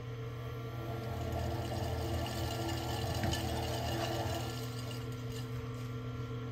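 Electric potter's wheel running with a steady hum while a metal trimming tool scrapes shavings off a white porcelain sake cup turning on it, the scraping strongest in the middle seconds.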